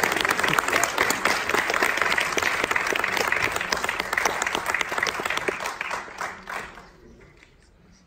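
Audience applauding: dense clapping that thins out and dies away about seven seconds in.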